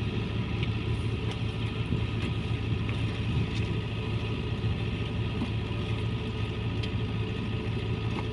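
Engine of a rice-field machine, either the combine harvester or the crawler hauler, running steadily with an even low drone.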